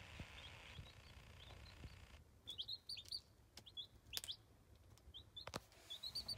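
Young chicks peeping: many short, high chirps, coming in quick clusters, with a couple of sharp clicks.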